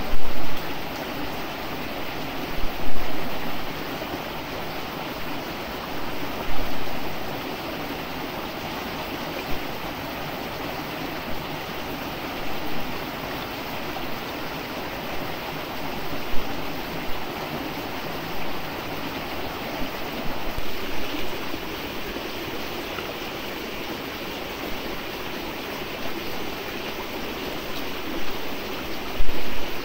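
Stream water running steadily over rocks, with a few short, louder sounds rising above it now and then.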